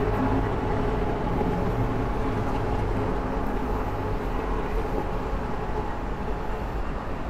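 Steady rumble of road traffic, with a vehicle engine hum that fades away about three seconds in.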